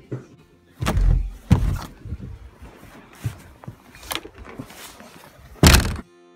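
Knocks and thuds of a door and of a phone being handled as it is carried out through a doorway, with two heavier thuds about a second in. Near the end, a loud gust of wind hits the microphone and cuts off abruptly.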